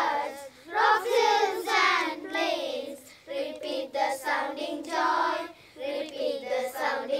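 Children's choir singing a Christmas carol together, line by line with short breaks between phrases.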